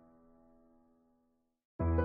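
Background music: a held chord fades away to silence, then a new, louder piece starts abruptly near the end.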